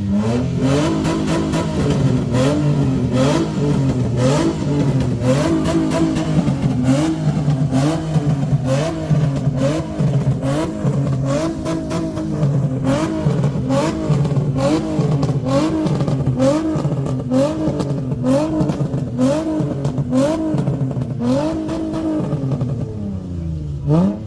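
Car engine revved over and over, its pitch rising and falling about once a second, then dropping back near the end.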